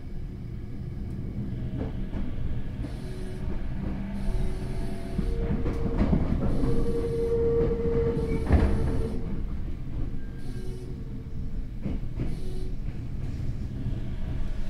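Tokyo Metro 08 series electric train running, heard from inside the car: a steady rumble of wheels on rail with a steady whine from its Mitsubishi IGBT inverter-driven traction motors. Several short high-pitched hisses come and go through the middle of the passage.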